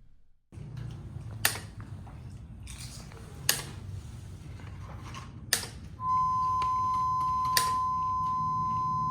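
Steady low hum of a small fish tank pump running, with a sharp click about every two seconds. About six seconds in, a steady sine tone near 1,000 Hz from a sine wave generator starts: the frequency set to shut the pump off and open the drain valve.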